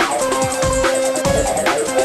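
Background electronic music with a steady beat and a held synth note.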